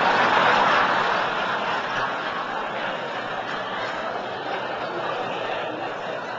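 Large audience laughing in response to a punchline, loudest at the start and slowly dying down.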